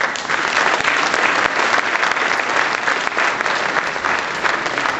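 Audience applauding in a hall: a dense, steady clapping that sets in abruptly and eases slightly near the end.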